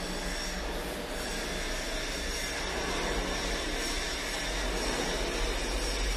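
CNC drilling and tapping center running: a steady mechanical noise with a faint high whine.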